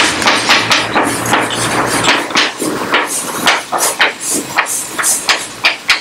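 Chalk tapping and scraping on a blackboard as characters are written: a fast, irregular run of sharp taps, several a second, with short scratchy strokes between.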